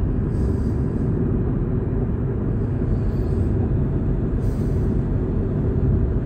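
Steady low rumble of a car cruising on a highway, heard from inside the cabin: engine and road noise with no sudden events.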